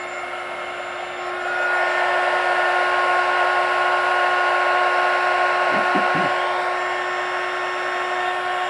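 Heat gun running steadily, its fan blowing with a constant motor whine, shrinking heat-shrink tubing over a soldered XT60 connector joint. It gets louder about a second and a half in.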